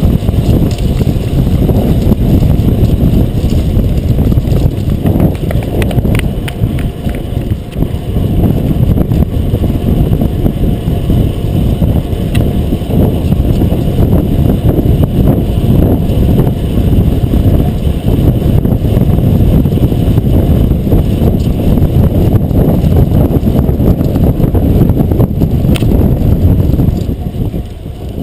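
Steady, muffled rumble of wind buffeting an action camera's microphone, mixed with road and drivetrain noise from a fixed-gear bicycle ridden at racing speed. It dips briefly near the end.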